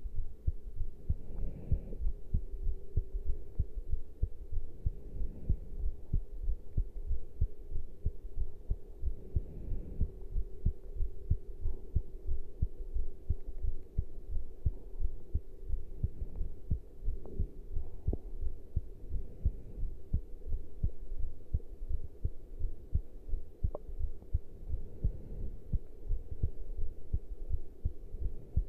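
A person's heartbeat recorded close against the chest after caffeine intake, beating in a steady, regular rhythm. A faint steady hum runs underneath, and a few brief noises are heard along the way.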